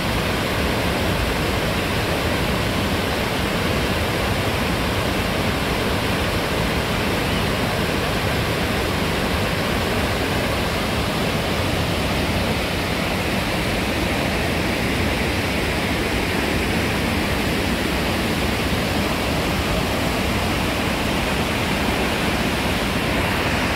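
Rushing water of a rain-swollen mountain river and waterfall in flood: a steady, unbroken roar of water.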